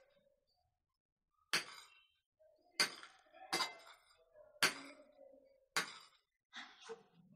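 A metal serving spoon clinking against ceramic dishes and plates as food is served at the table: about five sharp clinks roughly a second apart, each with a brief ring.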